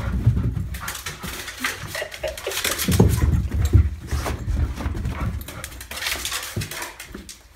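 Footsteps thumping down carpeted stairs as a person hurries after a yellow Labrador, with the dog's own noises mixed in; the loudest thumps come about halfway through.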